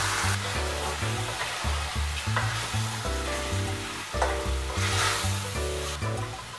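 Chicken, diced vegetables and seasonings sizzling in oil in a metal pot while a wooden spoon stirs them, scraping against the pot. Background music plays underneath.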